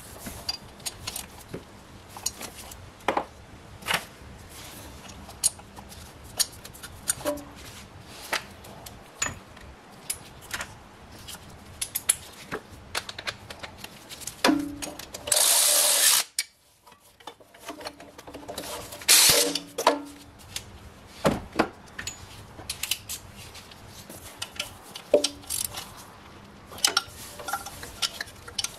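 Hand tools working on a thermostat housing: a ratchet wrench on the housing bolts and a screwdriver on a hose clamp, giving scattered sharp clicks and metal clinks. About halfway through, a loud rush of noise lasts about a second.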